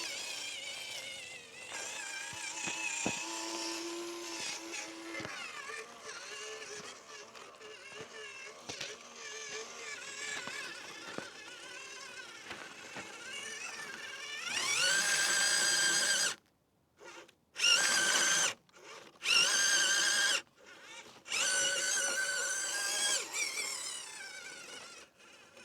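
Small electric RC car motor and gears whining as the WPL C84 drives, the pitch rising and falling with the throttle. Past the middle it climbs steeply to a loud whine, then runs in several short loud spurts that stop abruptly as the throttle is blipped on and off.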